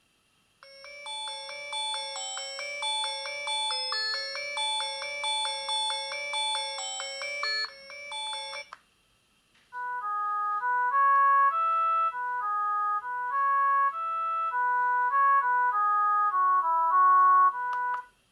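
Two ringtones from a HAMMER Basalt phone's speaker, played one after the other. First a busy, fast-moving melody lasts about eight seconds. After a second's break comes a simpler tune of clear, separate notes, also about eight seconds. Each stops suddenly.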